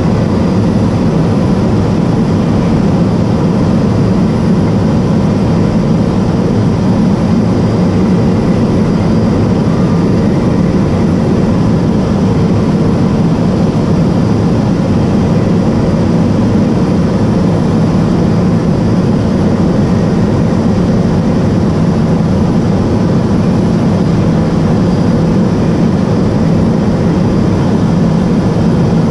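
Cabin noise of a Cessna P210 Silver Eagle in flight: its Rolls-Royce turboprop engine and propeller give a loud, steady drone, heaviest low down, with a faint steady high tone above it.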